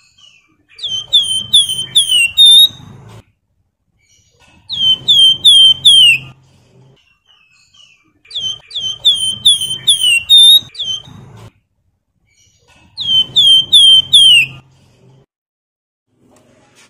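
Wergan jawa (Javan fulvetta) singing. Four bouts of clear whistled song, each a quick run of four to six short falling notes, some ending in a longer note that falls lower.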